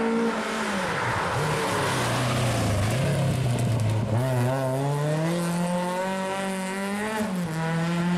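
Rally car engine passing on a stage: the note drops within the first second as it slows, then climbs steadily for several seconds as it accelerates hard, dipping briefly about seven seconds in before holding high.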